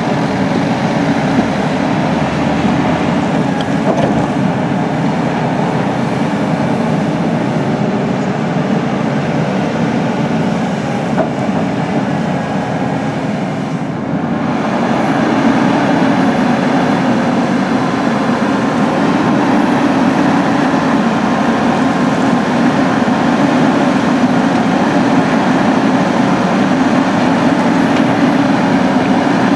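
Caterpillar 320CL tracked excavator working: its diesel engine and hydraulics running steadily under load, a little louder from about halfway through.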